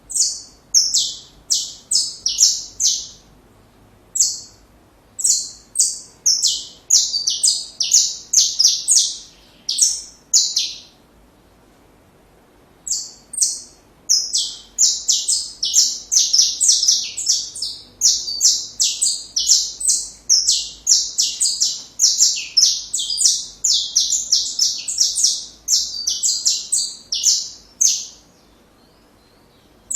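Saffron finch (canário-da-terra) singing: phrases of rapid, short, high notes, with a pause of about two seconds partway through and then a long unbroken run of song.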